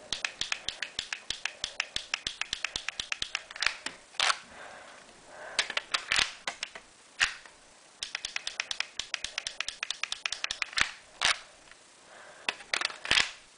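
Plastic clicks from a Lego brick pistol being handled. There are two runs of quick, even clicks, about six a second, each lasting a few seconds, with a few single sharper clicks between and after them.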